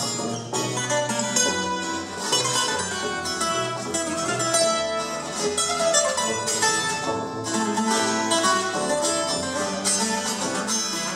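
Colombian Andean string music played live: tiples and requinto plucked and strummed over a double bass line.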